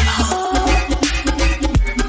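Upbeat intro music with a heavy bass line and a steady drum beat.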